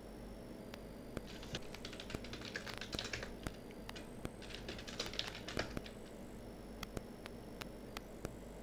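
Typing on a computer keyboard: two quick runs of keystrokes, one starting about a second in and one in the middle, with a few single key clicks around them.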